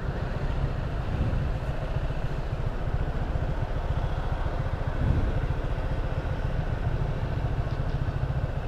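Motorcycle engine idling steadily, with a slight swell about five seconds in.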